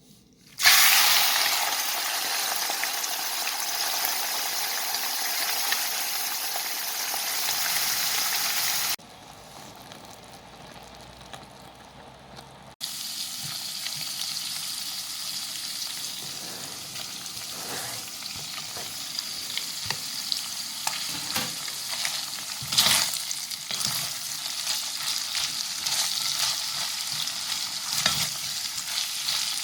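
Strips of pork frying in a hot pan: a loud, even sizzle that cuts off abruptly about nine seconds in, a quieter stretch, then steady sizzling with frequent scrapes and knocks of a spatula stirring the meat.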